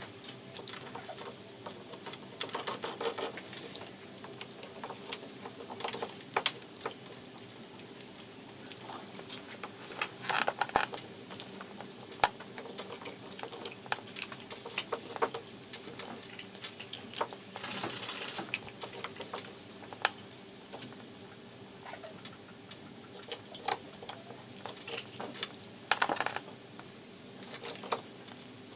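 Greyhound gnawing and crunching a raw meaty bone: irregular cracks, clicks and short crunching bursts as it chews. A faint steady hum sits underneath.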